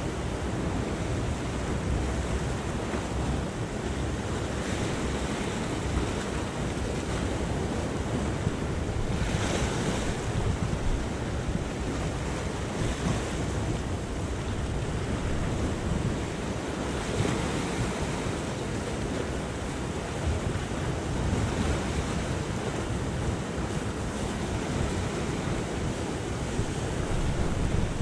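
Sea surf washing and breaking over rocky shore ledges, swelling in repeated surges every few seconds, with wind buffeting the microphone.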